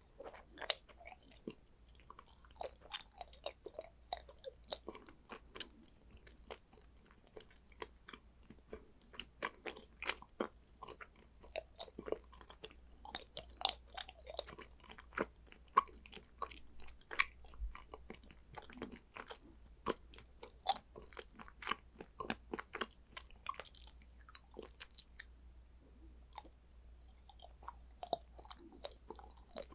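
Close-miked chewing and biting of condensed-milk chocolate: a dense run of small clicks and crunches from the mouth, thinning out for a few seconds near the end.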